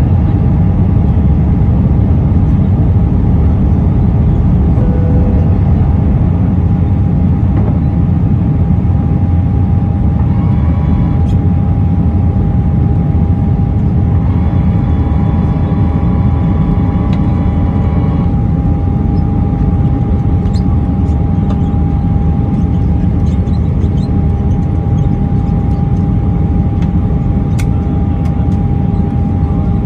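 Airbus A319 cabin noise during the descent to landing: a steady rumble of engines and rushing air, with a steady whine running through it.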